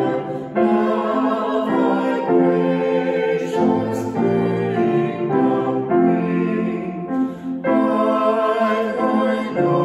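A woman and a man singing a duet, accompanied by a grand piano, moving steadily from note to note.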